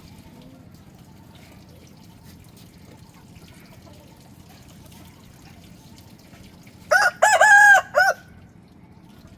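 A rooster crows once, about seven seconds in: a single crow of about a second, loud and broken into a few notes. Faint low background noise runs underneath.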